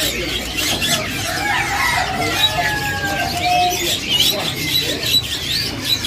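A chorus of many caged songbirds chirping and whistling at once. About two and a half seconds in, one longer whistled note slowly falls in pitch.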